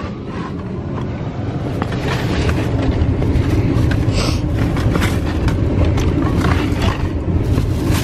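Steady low rumble of wind buffeting the microphone, with rustling and light knocks as bags and bottles are handled on the car's back seat and floor.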